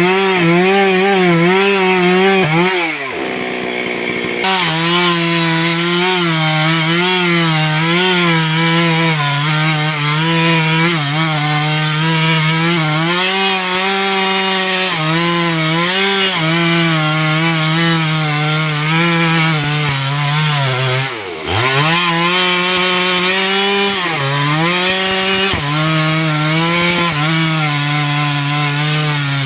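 Stihl two-stroke chainsaw running at high revs while cutting through a tree, its engine note wavering constantly as the chain bites and bogs under load. The note dips sharply and recovers about three seconds in and again about two-thirds of the way through.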